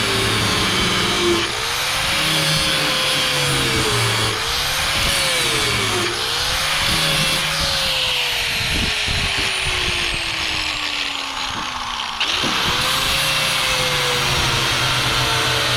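Grinder cutting the heads off bow-rail bolts. The motor's whine sags and recovers under load several times, winds down with a falling pitch for about four seconds, then comes back up to full speed about twelve seconds in.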